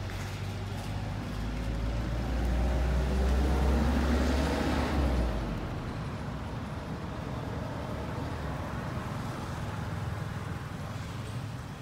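A motor vehicle passing by: a low rumble builds about a second in, is loudest around four seconds, then fades away by about six seconds, leaving steady outdoor background noise.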